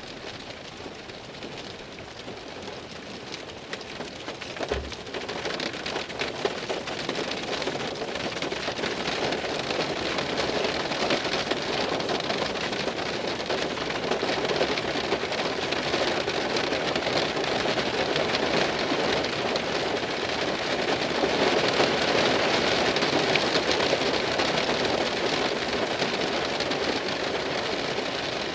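Heavy rain falling on a car's window, a dense steady patter that swells over the first few seconds and grows heavier past the middle.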